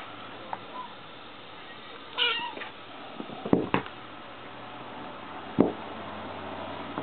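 A tabby kitten gives one short, high meow about two seconds in while two kittens play-fight, followed by a few sharp thumps, the loudest one near the end.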